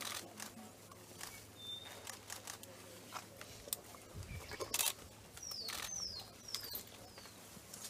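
Birds chirping, with a run of four quick falling chirps from about five seconds in, over scattered crackles and snaps of leafy branches being stripped and chewed by young elephants.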